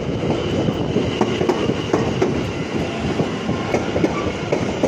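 London Overground Class 710 Aventra electric multiple unit running into the platform, its wheels clicking rapidly and irregularly over the rail joints. A steady high whine sounds over the rumble.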